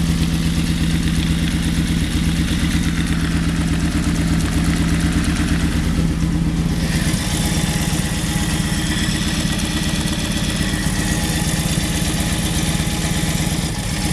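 1982 Honda Sabre V4 engine idling in neutral, running steadily throughout. About seven seconds in, the sound changes: a steady low hum gives way to a higher whine. This is the odd noise the owner hears when the bike is tilted.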